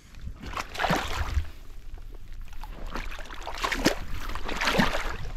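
Shallow lake water sloshing and splashing in about four swishes as a northern pike is released by hand into the shallows, over a low wind rumble on the microphone.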